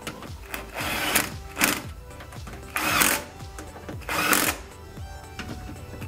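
A cordless drill-driver runs in four short bursts, the second one brief, as it drives the door latch screws into the car door's edge. The screws have been started by hand first.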